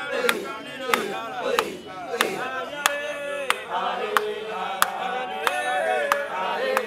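A crowd of voices chanting together in unison, rising and falling in pitch. Through it runs a sharp click or tap that repeats about every two-thirds of a second.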